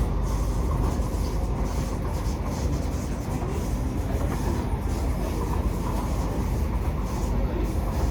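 Cabin noise of a Kawasaki–Nippon Sharyo C751B metro car running along the track: a steady low rumble with irregular knocks from the running gear, which the owner is quite sure are not caused by wheel flats.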